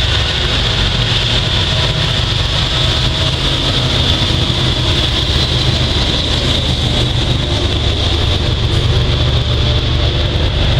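A steady engine rumble at an even level, with a steady high-pitched hum above it.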